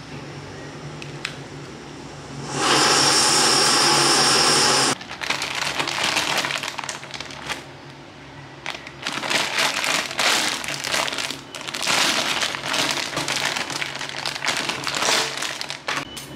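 Butane backpacking stove burning with a loud steady hiss for about two seconds, stopping abruptly. Then plastic packaging crinkling and rustling in repeated bursts as a mini roaster is handled and unwrapped.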